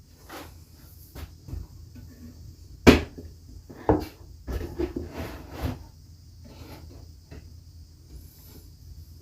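Scattered wooden knocks and clunks from plywood cabinet panels and clamps being handled and set in place during assembly. The sharpest knock comes about 3 s in, another about a second later, then a short run of lighter clatters.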